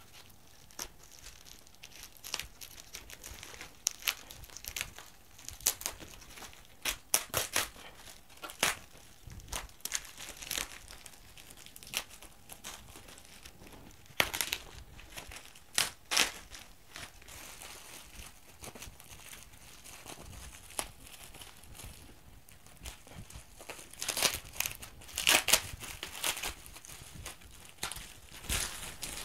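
A parcel bound in brown plastic packing tape being cut and torn open with a knife, its wrapping and the plastic bags inside crinkling, crackling and tearing in irregular handling noises. The loudest rustling comes about seven seconds in and again a few seconds before the end.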